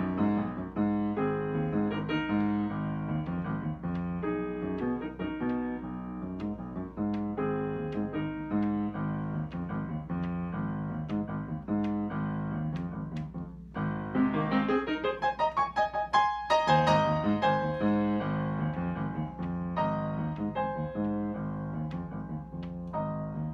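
Solo piano playing a slow, even piece. About two-thirds of the way through, after a brief pause, it breaks into a quick flourish of rapid notes before settling back.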